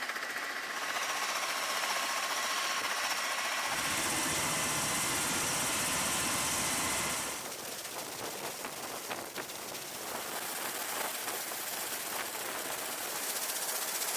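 V-22 Osprey's turboshaft engines running on a carrier flight deck, a steady high whine over engine and rotor noise. About four seconds in the noise gets louder and fuller for a few seconds, then drops back to a quieter run.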